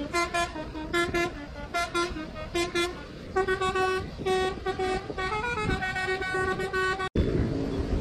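Telolet musical horn playing a tune: a quick run of short toots, then from about three seconds in longer held notes stepping between pitches. The horn cuts off suddenly near the end, leaving traffic noise.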